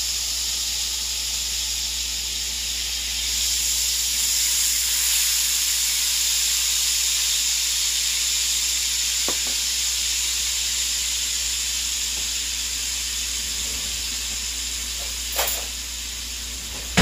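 Soy sauce sizzling as it is poured into hot oil in a frying pan, a steady high hiss that swells about three seconds in and eases off toward the end. Two short knocks near the end.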